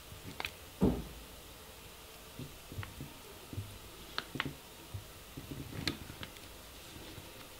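Faint clicks and taps of hands handling small parts on a carbon-fibre quadcopter frame, with a soft thump about a second in and small clusters of clicks later.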